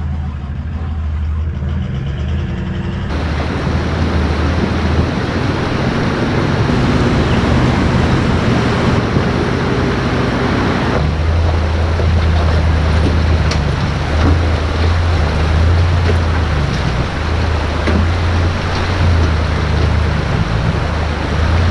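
A motor vehicle driving, with a steady low engine drone and road noise. The sound changes abruptly twice, about three seconds and eleven seconds in.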